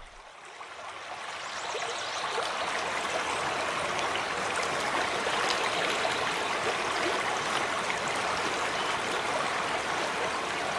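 Shallow rocky river flowing and burbling over stones, a steady rush of water that fades in over the first couple of seconds.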